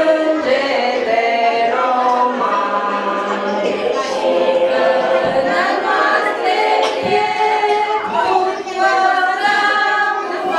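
A group of voices singing a song together without accompaniment, in held, sung notes.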